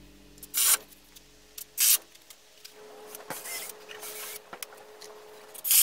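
Carpentry work on a wooden railing: a few short, sharp bursts of noise, loudest about half a second in, about two seconds in and just before the end, with a faint steady hum in the second half.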